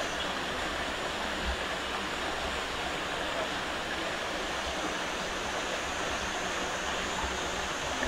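Steady rush of a forest stream running over rocks.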